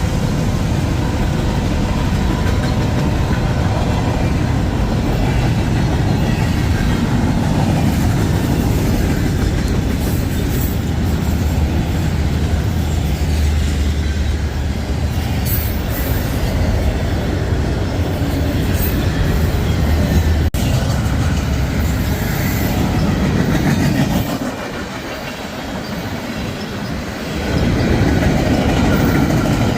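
Freight cars of a long mixed manifest train rolling past, with a steady rumble and clatter of steel wheels on the rails. About 24 seconds in it briefly grows quieter, then picks back up.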